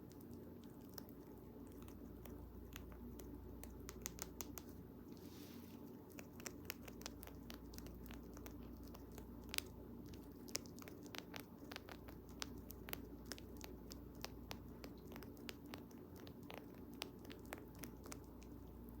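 Dwarf rabbit gnawing a bamboo chew: quick, irregular crisp clicks and cracks as its teeth bite and crunch through the bamboo, over a faint steady hum.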